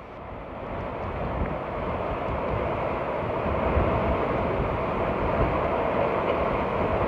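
Water rushing and breaking along the hull of a Bavaria 55 Cruiser sailing yacht moving fast under sail. The rush builds over the first few seconds, then holds steady.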